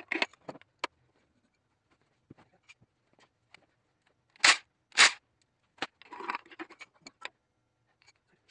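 Metal tools and parts knocking and scraping on an opened engine block: light clicks and scrapes, then two loud sharp knocks about half a second apart halfway through, followed by a short rattle and scrape.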